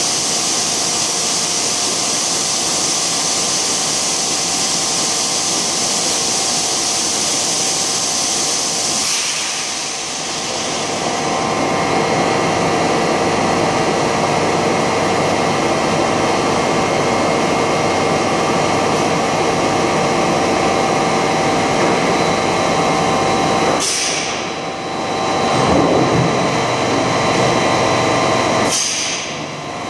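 TDW 350D extrusion blow molding machine running: a steady mechanical hum with several held tones and a high hiss, the hiss easing off about nine seconds in. Two short rushes of sound come near the end as the mold opens.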